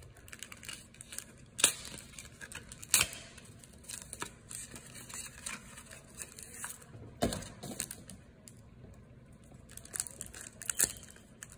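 Foil Pokémon booster-pack wrapper being torn open and crinkled by hand, soft rustling broken by several sharp crackles of the foil.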